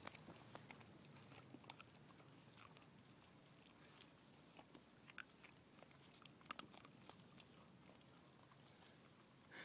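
Faint, scattered wet clicks and smacks of a Samoyed licking and chewing at a squeeze tube of food held out to it.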